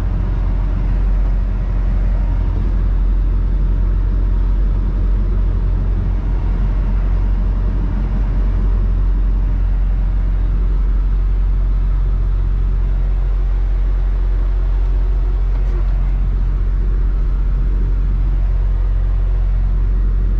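Semi truck driving: a steady low engine drone with road noise.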